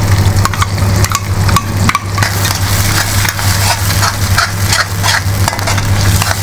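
A perforated steel spatula stirs yogurt into sizzling masala in a metal kadhai, with frequent scrapes and taps against the pan. The yogurt is being stirred constantly so that it does not split.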